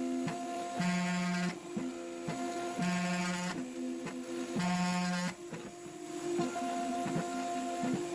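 CNC router running: a steady machine hum with three short motor whines, each under a second and about two seconds apart, as the axes move.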